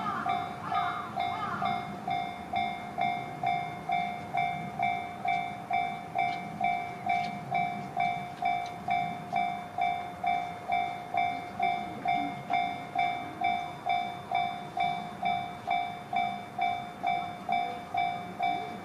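Japanese railway level-crossing warning bell ringing steadily at about two strikes a second, sounding while the crossing is closed for a train.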